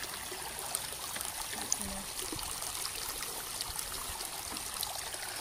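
Shallow, stony river flowing over rocks: a steady rush and trickle of water.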